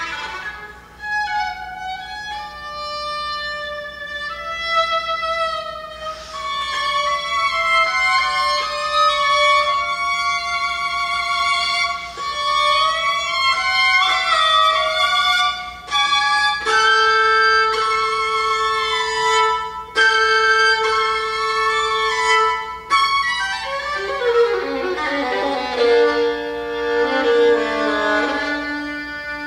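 Amplified solo violin playing a quick, winding melodic line. A little past halfway a lower note is held for several seconds under the moving line, and near the end the pitches slide.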